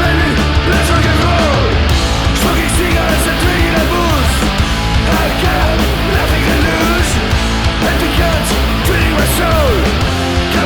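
Loud, steady punk rock recording: a full rock band with electric guitar playing without a break.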